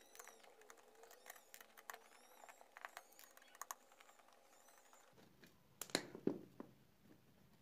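Small hand screwdriver working screws out of a thin metal keyboard back plate: a run of faint clicks and ticks, then two louder knocks about six seconds in as the tool is set down and the plate is handled.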